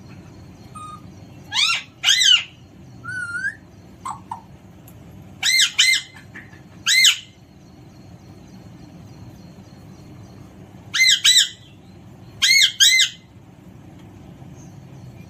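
Alexandrine parrot squawking: short, loud calls, mostly in quick pairs, with a few softer gliding notes about three seconds in and a pause of a few seconds before the last two pairs.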